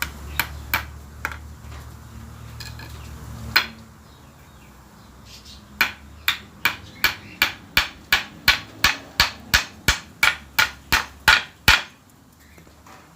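Hammer driving nails into wooden boards. A few scattered blows at first, then a steady run of about seventeen strikes at roughly three a second, ending a little before the close.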